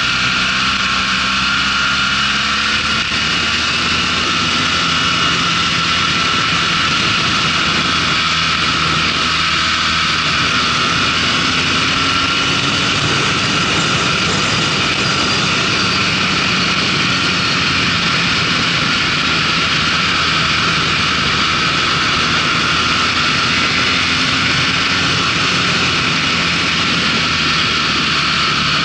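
Motorcycle engine running at road speed, its pitch rising and falling gently as the bike accelerates and eases through bends, under a steady rush of wind noise.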